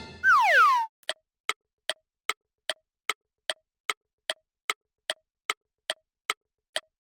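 Cartoon sound effects: a short falling whistle-like glide, then steady clock-like ticking, about two and a half ticks a second.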